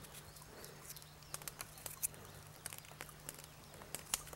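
Faint crackling of a wood fire: scattered sharp snaps and pops over a low steady hum.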